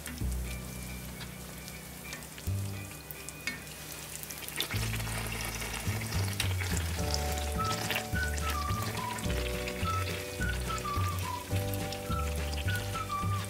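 Vegetable oil sizzling and crackling around a Vietnamese hollow donut deep-frying in a pan, with fine pops throughout. Background music plays underneath, its melody coming in about halfway.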